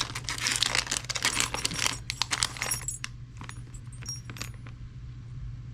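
Small metal pistol parts clinking and rattling as they are handled and sorted, a dense run of clinks for about three seconds, then a few scattered clicks.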